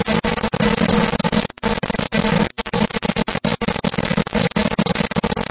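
Loud, harsh distorted noise over a steady low hum, chopped by many brief cut-outs: a deliberately ear-grating donation alert sound played on the stream.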